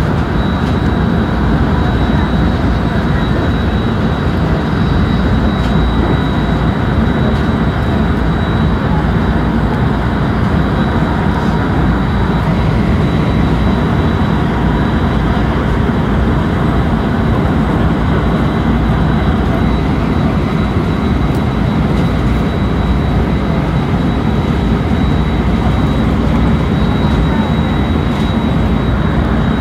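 JR West 223 series electric train running at speed, heard from inside the leading motor car: a steady rumble of wheels on rail, with a faint high steady tone above it.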